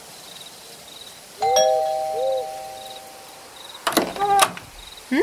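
Two-tone doorbell chime, a single ding-dong about a second and a half in, ringing out for about two seconds. Two short sharp sounds follow about a second later.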